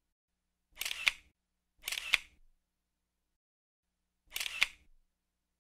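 Single-lens reflex camera shutter firing three times, each a brief rush ending in a sharp click, with silence between.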